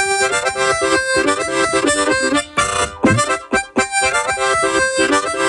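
Diatonic harmonica played solo: a simple tune of single notes and chords, with a couple of short breaks between phrases about halfway through.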